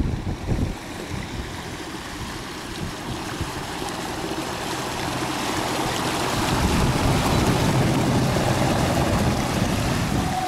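Rushing, hissing water of the bow wave and wake from a 21-ft wooden electric launch passing close by, growing louder as the boat nears and then easing slightly near the end. Wind buffets the microphone in the first second or so.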